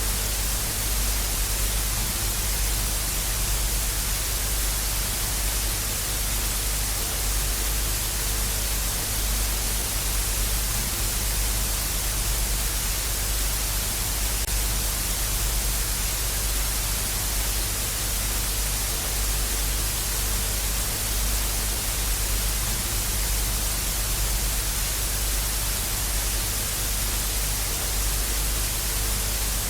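Television static: a steady, even hiss of white noise with a low hum underneath, unchanging throughout.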